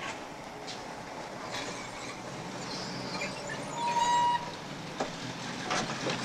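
Steady street traffic noise, with a short horn toot about four seconds in and a few sharp clicks near the end.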